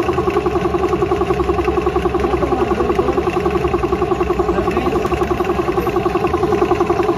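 Belt-driven piston air compressor running steadily, its electric motor spinning the pump's large flywheel pulley, with a rapid, even pulse of about ten beats a second.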